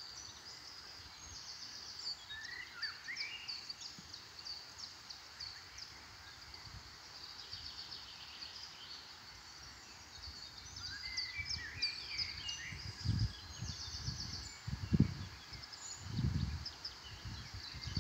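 Several songbirds singing together: many short chirps and trills, with a few falling whistled notes, over a steady outdoor background. In the second half there are several low rumbling gusts, the loudest about 15 seconds in.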